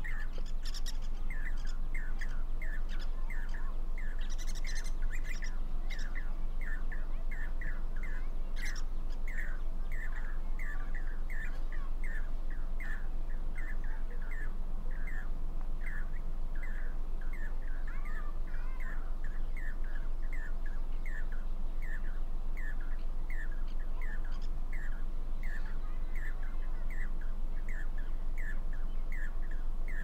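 Jacobin cuckoos (pied crested cuckoos) calling to one another from a wire: a long, steady run of short repeated calls, about two a second. The uploaders think this calling may be part of a mating ritual.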